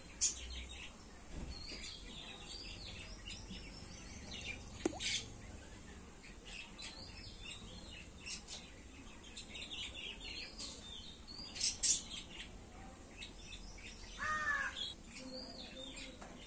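Small birds chirping in short, repeated high calls throughout, with a lower, harsher bird call near the end.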